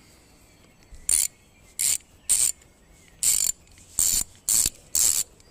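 Bergen 72-tooth 3/8-inch drive extra-long ratchet being worked back and forth, its pawl mechanism giving seven short bursts of fine, rapid clicking.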